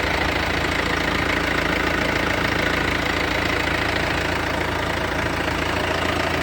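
Mercedes-Benz OM651 four-cylinder diesel engine idling steadily.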